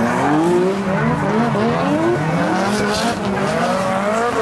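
Several drift cars sliding together, their engines revving up and down at full throttle over the squeal of tyres.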